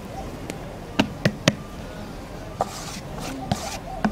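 Several light, sharp knocks and taps of kitchen vessels, then a soft hiss partway through as flour is poured from a plastic bowl into a steel tray.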